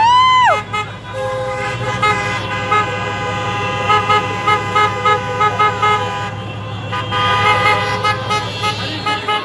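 Horns of passing convoy trucks and cars honking, several at once over traffic noise: some are held, others toot in a quick steady rhythm of about two a second. A loud held note wavers and breaks off about half a second in.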